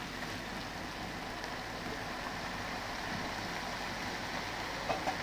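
Sausage and vegetables frying in a skillet with a steady sizzle as canned diced tomatoes are poured over them, with two light clicks near the end.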